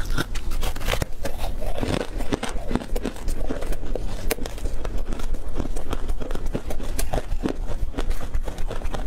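Close-miked crunching and chewing of a crispy tartary buckwheat snack, a dense, irregular run of crackly crunches as pieces are broken and bitten.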